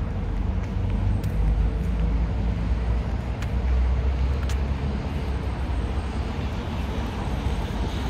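A steady low rumble under a rushing hiss, swelling a little about a second in and again near the middle, with a few faint clicks.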